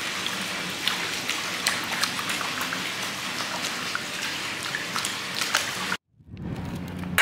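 Water splashing and dripping in a hot-spring foot bath, a steady watery patter of many small splashes. It cuts off abruptly about six seconds in, and a softer rush of wind follows.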